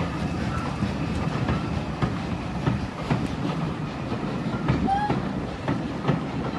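A train rolling past on the railway: a steady rumble with irregular clicks from the wheels on the track, and a brief squeal about five seconds in.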